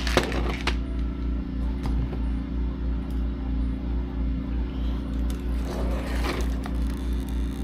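A steady low hum with a slow, even pulse, with a sharp click just after the start and a brief rustle of handled parts about six seconds in.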